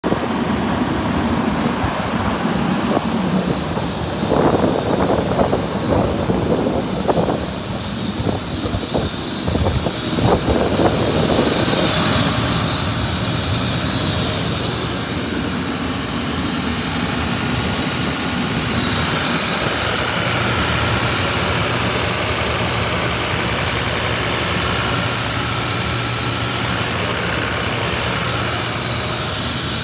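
John Deere diesel engine of a 2014 Atlas Copco XATS750JD portable air compressor running. It is uneven, with louder surges, for the first ten seconds or so, then settles into a steady drone.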